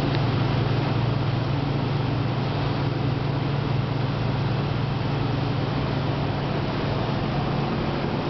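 A 50 ft Azimut motor yacht under way, its engines running with a steady low drone beneath the continuous rush of its churning wake water.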